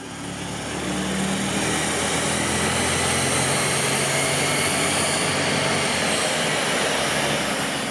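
The completely standard 6.0-litre L98 LS-family V8 of a Holden Commodore SS, running under load on a chassis dyno with its rear tyres spinning on the rollers. It builds over about the first second, then holds steady.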